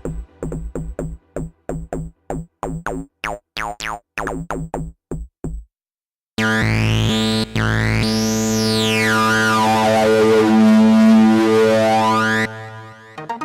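Sylenth1 software synthesizer presets: a fast run of short, plucked-sounding notes that grow brighter as the filter opens, stopping about five and a half seconds in. After a brief gap comes a sustained chord with a sweep that rises and then falls. The chord cuts off near the end as another quick rhythmic pattern starts.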